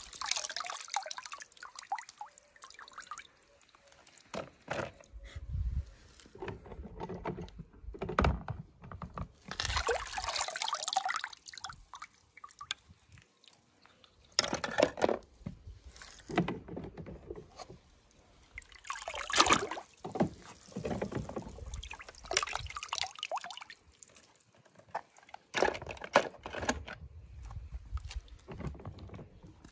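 Water sloshing and splashing in irregular bursts, some with low thumps.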